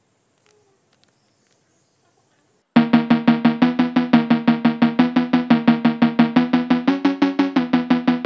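Near silence for the first two and a half seconds, then background music starts suddenly: a fast, steady pulse of repeated pitched notes over a low note.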